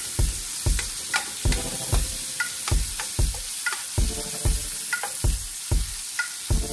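Chopped onions, garlic and hot peppers sizzling in oil in a nonstick pan while a spatula stirs them, knocking and scraping against the pan about two to three times a second, some strokes ringing briefly.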